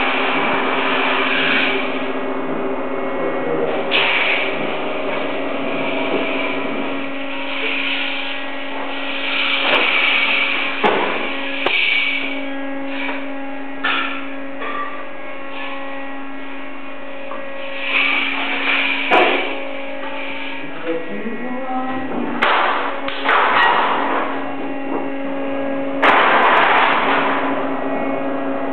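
Roll-forming machine for steel roller-shutter slats running with a steady motor hum, broken every few seconds by hissing scrapes of sheet metal passing through the rollers and a few sharp metal knocks.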